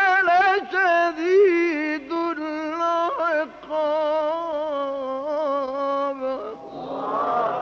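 A male Quran reciter's solo voice in the melodic mujawwad style, drawing out long ornamented, wavering notes on 'wa inna rabbaka la-shadid al-'iqab'. Near the end the phrase closes and a burst of many listeners' voices rises in response.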